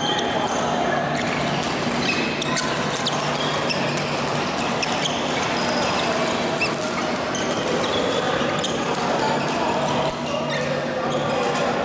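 Badminton hall din: sharp racket hits on shuttlecocks and brief shoe squeaks from several courts at once, over a steady background of chatter and hum.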